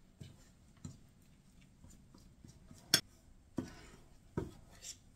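Metal fork clinking and scraping against a glass mixing bowl while working flour, eggs and butter into a dough: scattered irregular taps, the sharpest about three seconds in.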